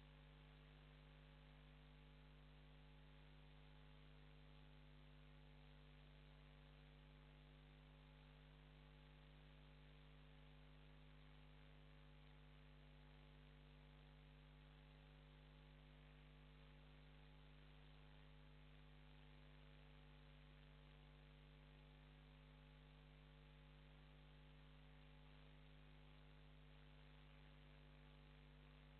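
Near silence: a faint, steady electrical mains hum with its overtones over low hiss, unchanging throughout.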